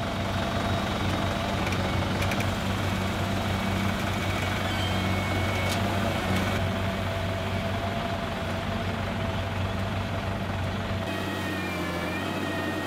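Tractor engine running steadily while it pulls a net bulb-lifting machine, whose rollers wind up the buried nets, with a steady hum and a higher mechanical whine. The low rumble thins out at about 11 seconds.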